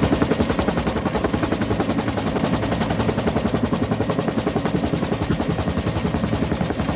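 Helicopter rotor chopping at a rapid, even beat, loud and steady.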